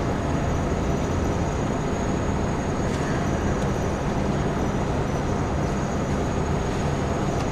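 Steady background noise: an even rumble and hiss with a low hum, unchanging and without any distinct events.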